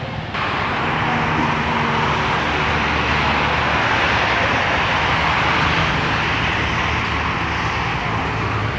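Steady rushing traffic noise from vehicles on the road next to the playground, starting suddenly just after the start and holding at an even level.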